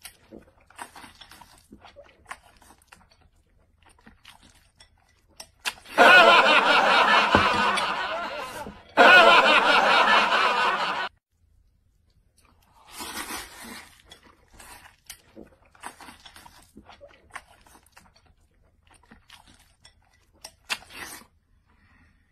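Noodle-eating mouth noises, a run of small slurps, smacks and chewing, broken by loud laughter about six seconds in. The laughter lasts about five seconds with one short pause, and a shorter burst of laughter follows a little later.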